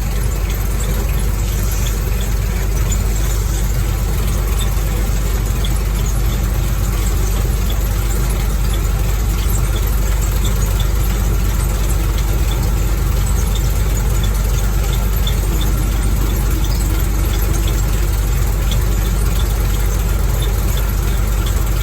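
Combine harvester running at full throttle with its separator and feeder engaged while cutting soybeans: a loud, steady machine drone with faint scattered ticks on top.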